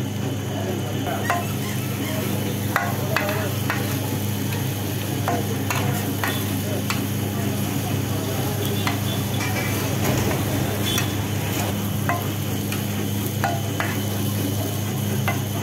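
Long-handled steel spatula scraping and turning chicken masala on a large flat iron griddle, the food sizzling as it fries. Irregular sharp scrapes and clicks of metal on the griddle come about once a second over a steady low hum.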